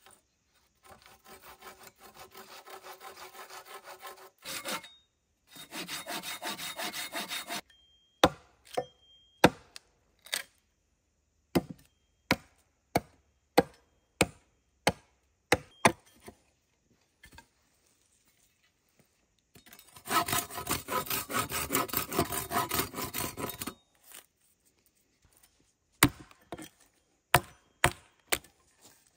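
Hand saw cutting through wood in three bouts of quick, even strokes, with a series of sharp wooden knocks between and after the bouts.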